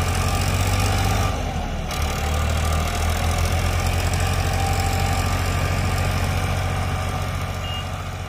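Farmtrac 60 tractor's three-cylinder diesel engine pulling a disc harrow through the soil, a steady low chugging under load. Its note shifts briefly about two seconds in.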